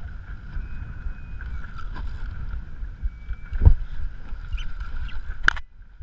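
Rubbing and handling noise on a chest-mounted GoPro housing as the angler works a spinning rod, over a steady low rumble. There is a knock a little past halfway and a sharp click shortly before the end.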